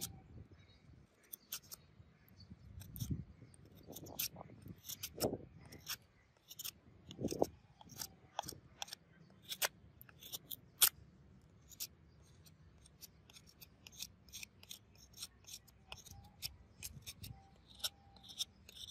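A freshly sharpened steel knife shaving slivers off the edge of a wooden stick, a sharpness test: an irregular run of short, crisp clicks as each stroke cuts through the wood, with a few duller knocks in the first half.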